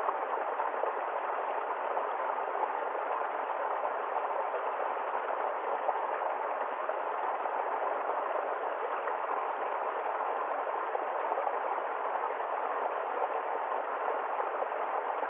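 Babbling stream water, a steady rushing and gurgling that doesn't let up.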